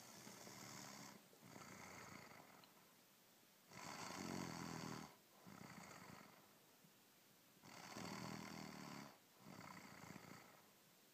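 Faint, steady snoring: each breath comes in two parts, a louder one with a low buzz followed by a softer one, then a short pause, repeating about every four seconds.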